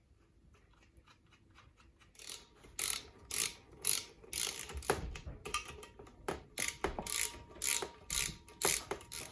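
A ratchet wrench is working back and forth, tightening the crimp nuts on a BSA A65 connecting rod's big-end cap. After about two seconds it makes a run of rasping clicks at about two strokes a second.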